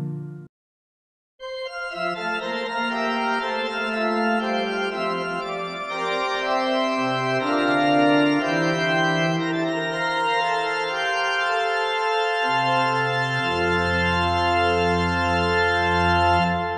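Church organ playing slow, held chords over deep bass pedal notes after a brief silence about a second in. The music fades away near the end.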